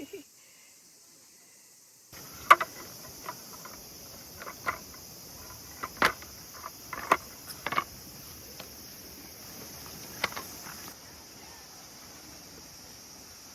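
Steady high-pitched chorus of insects, starting about two seconds in, with about half a dozen sharp clicks or knocks scattered through it.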